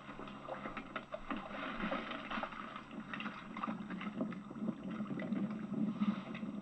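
Small boat out on choppy water: water splashing with scattered knocks, under a low steady hum that grows louder about halfway through.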